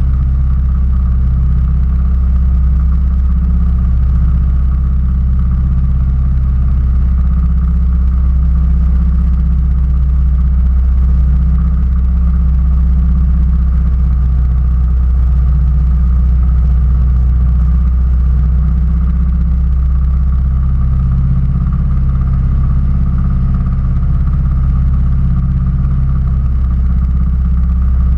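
Railroad speeder (track motor car) engine idling steadily while the car stands still on the track.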